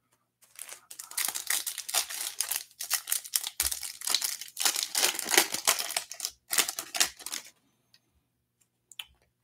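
A Panini Select UFC trading-card pack being torn open by hand, its foil wrapper crinkling and rustling in a dense run of crackles that stops about two seconds before the end.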